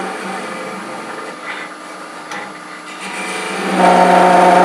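Wood lathe spinning a pepper mill blank while a hand-held turning tool cuts into the end grain, cleaning out the mouth of the drilled bore. About four seconds in the cut gets much louder, with a steady whine over the motor hum.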